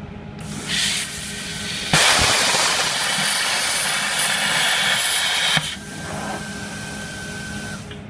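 Plasma cutter cutting a thin 2 mm stainless steel sheet. Compressed air hisses from the torch, the arc strikes with a sharp crack about two seconds in and cuts with a loud hiss for about three and a half seconds, then the air hisses on more quietly for about two seconds after the arc stops.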